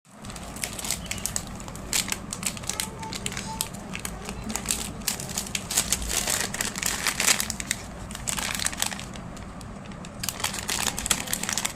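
Packaging being handled and opened: irregular crinkling and crackling of plastic wrap and cardboard, with a steady low hum underneath.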